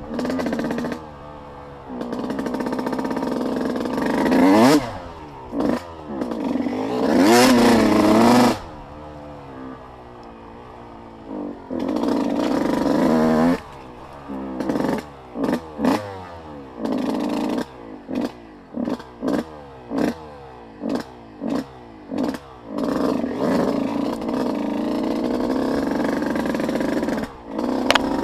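Off-road vehicle engine running and revving: a few long revs rising and falling, then a string of short throttle blips about one a second, then steadier running near the end.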